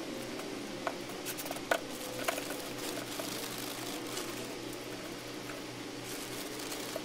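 Potting soil being scooped and poured from a plastic bag into plastic nursery pots, with a few short scrapes and crinkles in the first couple of seconds. A steady low hum runs underneath.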